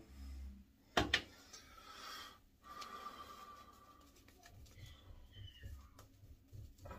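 Shaving brush working lather over the cheek and neck, a faint soft scrubbing, with breathing through it. Two sharp knocks about a second in are the loudest sounds.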